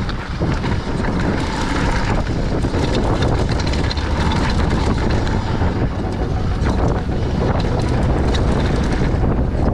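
Wind rushing over the action-camera microphone while a Scott Gambler downhill mountain bike's tyres roll fast over loose gravel and dirt, with steady rumbling and the bike rattling over bumps.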